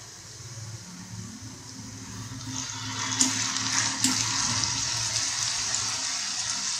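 Grated potato deep-frying in hot oil in a kadai, sizzling steadily. About two and a half seconds in the sizzle grows louder as a slotted spoon stirs through it, with two light clicks of the spoon against the pan.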